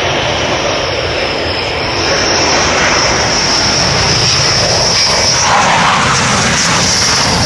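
Dassault Rafale fighter jet's twin turbofan engines passing low on landing approach: a loud, steady jet roar with a high-pitched whine over it that grows a little louder about two seconds in.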